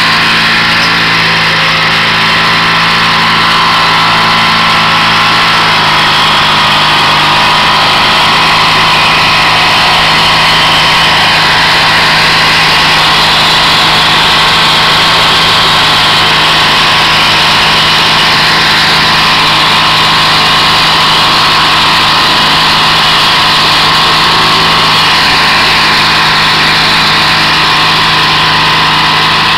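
Garden tractor engine running steadily while pulling a rear-mounted tiller through garden soil.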